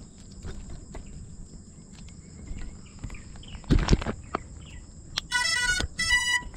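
Insects droning steadily in the grass over a low wind rumble on the microphone. There is one sharp knock about four seconds in, and near the end three short, loud pitched tones.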